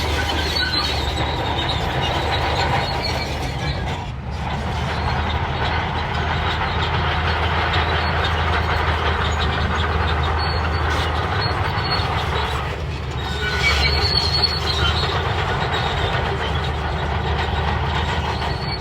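Crawler bulldozer working: a steady diesel engine drone with the steel tracks clanking and giving short high squeals now and then.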